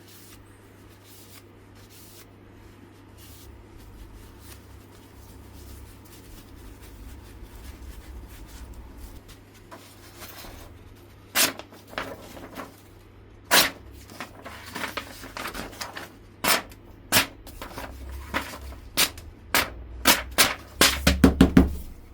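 A low rumble with sharp knocks and clicks, a few at first about halfway in, then coming quickly one after another near the end.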